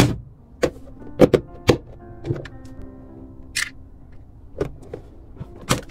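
Soft background music with sustained notes, over irregularly spaced knocks and clicks from earphone packaging being handled during an unboxing, with a short swish about halfway through.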